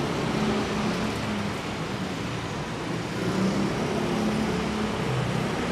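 Steady city road traffic: a continuous hum of passing vehicles, with low engine tones coming and going.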